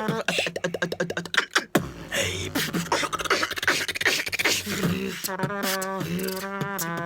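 Two beatboxers performing a tag-team routine. It opens with a fast run of sharp mouth clicks and snares, moves into gliding vocal tones, and from about five seconds in settles into a held low bass note under a warbling, melodic vocal line.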